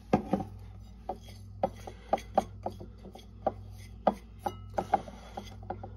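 Fingers and hands handling a ceramic plate of freshly ground pepper and salt, giving irregular small sharp clicks and light scrapes, about two or three a second. A steady low hum runs underneath.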